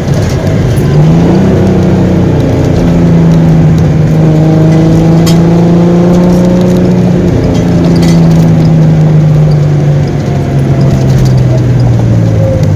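A vehicle engine running under loud, steady road-and-wind noise; its hum rises in pitch about a second in, holds, then drops in two steps later on.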